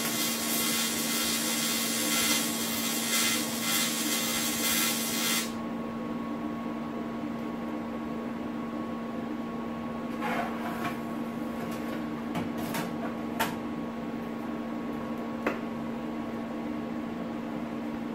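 Electric welding arc buzzing steadily for about five seconds, then cutting off suddenly. A steady hum stays on afterward, with a few light clicks.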